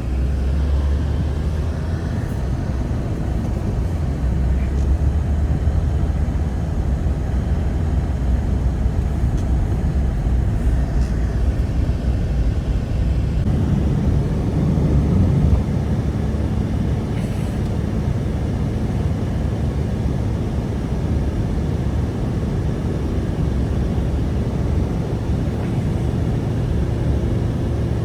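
Strong blizzard wind blowing as a steady low rumble, shifting in character about halfway through.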